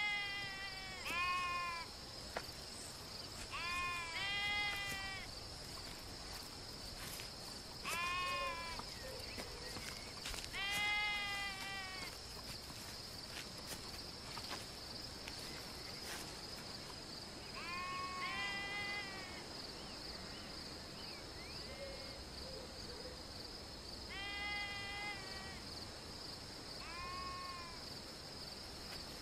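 Sheep bleating: about ten wavering calls, each a second or less, several coming in quick pairs. Under them runs a steady high chirring of crickets.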